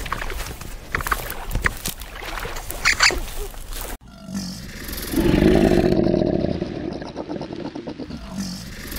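Capybara clicking and giving short high squeaks. Then, after a cut, a crocodile growls, a loud low pulsing rumble that builds about a second later and fades over the next few seconds.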